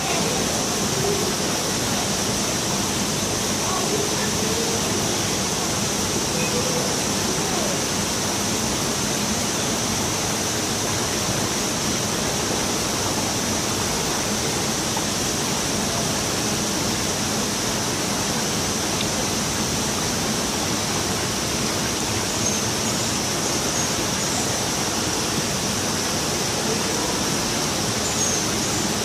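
Water running and splashing steadily into a pond: an even, constant rushing hiss.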